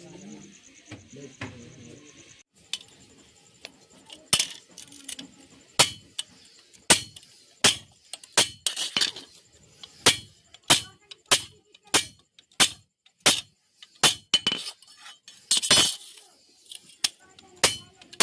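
Hand hammer striking steel: a run of sharp, ringing metallic clinks, about one and a half a second, beginning a few seconds in after a couple of fainter taps.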